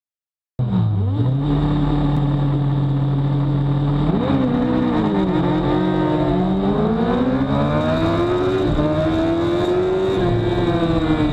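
Honda CBR1000RR inline-four engine heard onboard, cutting in about half a second in at steady revs, then revving sharply and accelerating hard through the gears, the pitch climbing and dropping at each upshift, with wind rush on the camera.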